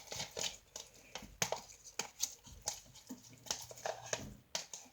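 Homemade slime being mixed and handled, giving a string of short, irregular sticky clicks and squelches as it forms.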